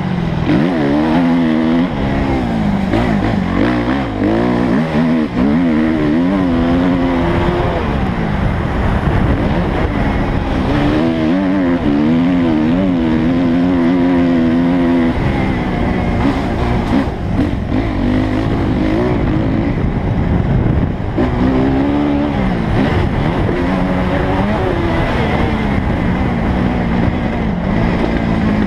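Suzuki motocross bike's engine under hard riding, heard from the rider's helmet camera: the revs climb and drop again and again as the throttle is worked and gears change, over steady wind and track noise.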